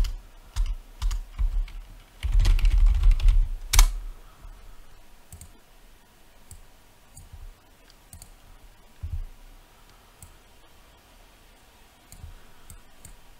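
Typing on a computer keyboard: a few separate keystrokes, then a quick run of them about two to four seconds in, followed by only faint scattered clicks.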